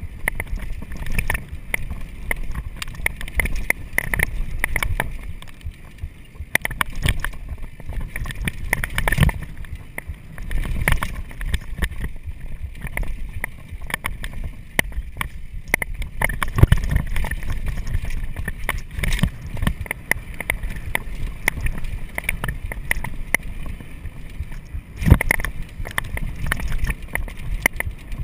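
Mountain bike riding fast down a rough dirt singletrack: a continuous low rumble of tyres on dirt with frequent sharp rattles and knocks from the bike over bumps.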